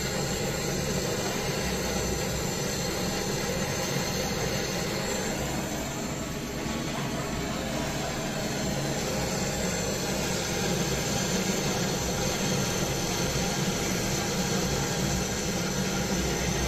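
Gas brazing torch flame burning with a steady rushing hiss, heating the copper charging-pin joint on a refrigerator compressor for brazing.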